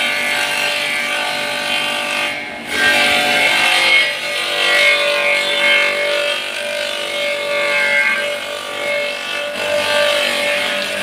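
Homemade feed-chopper machine running with a steady whine while cassava leaves are fed in by hand and shredded by its blades. The shredding noise drops off briefly about two and a half seconds in, then picks up again.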